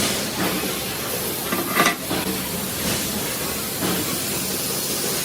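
Steady hissing workshop noise with a low hum under it, and one sharp knock about two seconds in.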